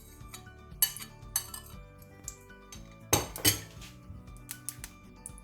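Metal spoon clinking against a cooking pot as spoonfuls of oil are scooped into the heated pan: a few sharp clinks, the loudest pair about three seconds in, with lighter taps near the end. Background music plays underneath.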